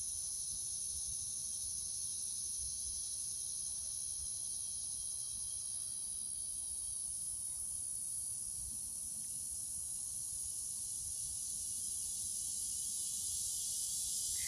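Steady high-pitched buzzing drone of an insect chorus, which the recordist takes for cicadas.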